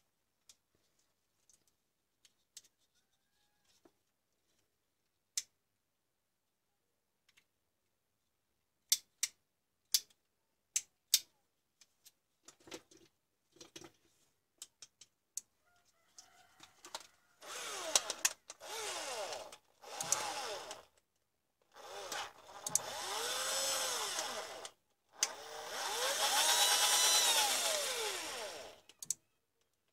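Scattered clicks and taps of small plastic parts being handled, then a cordless drill's motor run in four bursts over the last twelve seconds or so, its pitch rising and falling as it speeds up and slows with the trigger.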